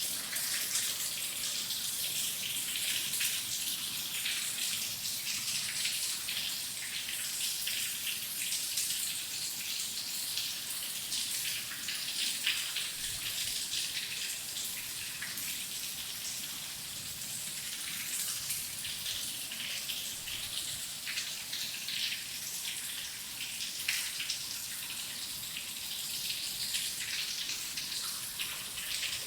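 Steady heavy rain: a dense, even hiss of falling rain full of fine, fast drop patter. No thunder is heard.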